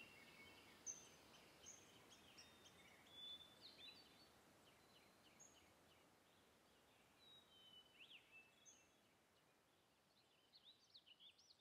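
Faint birdsong: scattered short chirps and whistles from several small birds over a quiet background hiss, with a quick flurry of calls near the end.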